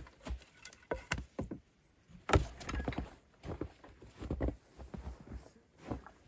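Footsteps: an uneven string of steps, each a short thud, with a few sharper knocks among them.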